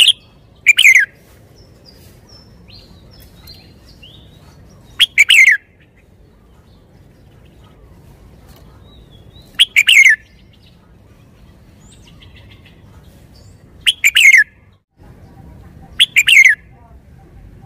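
Caged red-whiskered bulbul singing: loud, short song phrases of about half a second, each falling in pitch, repeated every four to five seconds, with faint chirps in the gaps.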